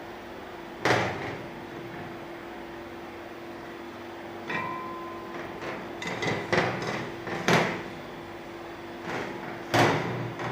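Aluminium kuih bakar moulds knocking and clattering on a metal worktop as they are handled: three sharp knocks about one, seven and a half and ten seconds in, with lighter clatter between, one knock leaving a short ring. A steady low hum runs underneath.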